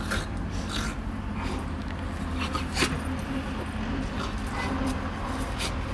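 Two dogs play-wrestling on grass: scattered short scuffles and rustles over a steady low rumble of distant traffic.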